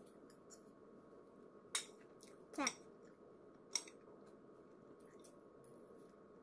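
A metal fork clicking and scraping on a plate: a faint click, a short squeak that falls in pitch, then another click.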